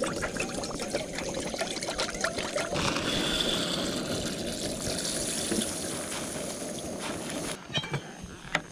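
Water pouring from a bottle into a stainless steel camp pot, followed after about three seconds by dry rice grains being poured into the pot from a plastic bag, with a hissier sound. The pouring stops about a second before the end.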